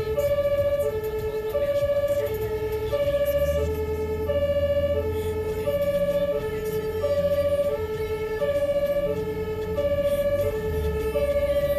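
German two-tone emergency siren (Martinshorn) on an ambulance, alternating steadily between a low and a high tone, about one high-low pair every one and a half seconds. It sounds as the vehicle drives through a rescue lane, with a steady engine and road rumble under it.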